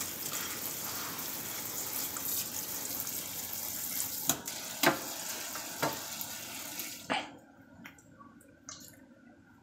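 Tap water running into a metal colander of crawfish in a stainless steel kitchen sink as they are rinsed and stirred by hand, with a few sharp knocks of shells against the colander. The water stops about seven seconds in.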